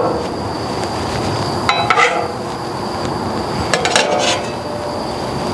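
Stainless-steel taco rack clinking and rattling as pancakes are pressed into its slots, in two short clusters about two seconds apart. A steady background hiss runs underneath.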